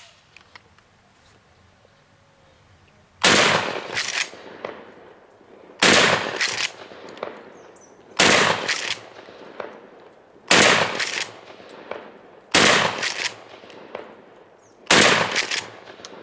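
Mossberg 500 12-gauge pump shotgun firing birdshot, six shots about two and a half seconds apart beginning about three seconds in, each one trailing off in a short ring-out.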